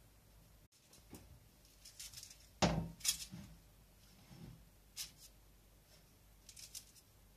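A metal baking tray knocked down on a kitchen counter about two and a half seconds in, the loudest sound, with lighter taps and paper rustles around it as shaped dough rolls are set onto the paper-lined tray.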